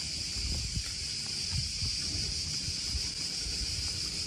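Wind buffeting the microphone in irregular low gusts over a steady high-pitched hiss.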